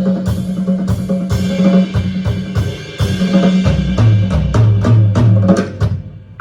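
Geomungo, yanggeum and drum kit playing together: sustained low notes under a run of sharp drum hits and struck strings. The sound thins out and fades just before the end.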